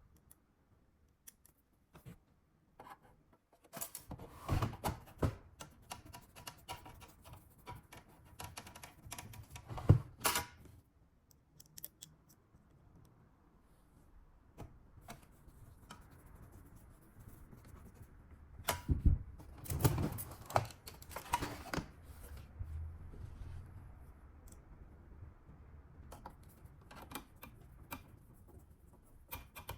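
Irregular clicks, taps and scrapes of hands and a screwdriver working on a car display unit's plastic and metal back cover as its four screws go back in. There is one sharp knock about a third of the way through and a cluster of louder knocks about two-thirds through.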